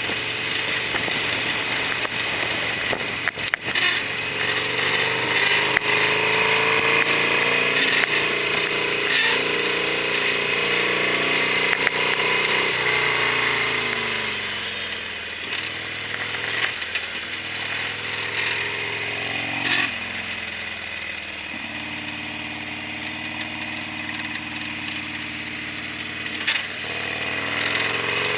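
Harley-Davidson Sportster XL1200R's 1200 cc V-twin engine under way, its pitch rising and falling as the bike speeds up and slows. It drops to a lower, steadier note a little past halfway.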